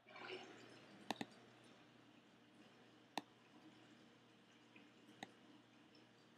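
Faint clicks of a computer's pointer button selecting files: a quick double click about a second in, then single clicks near three and five seconds, over quiet room tone.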